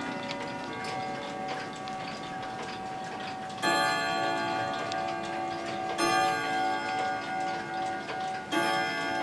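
Emperor grandfather clock striking the hour: three loud strokes about two and a half seconds apart, each ringing on, over the fading ring of the chime and the clock's ticking. One hour-strike hammer is faulty (its part has fallen off, and the striking side needs rubber), which makes the strike sound weird.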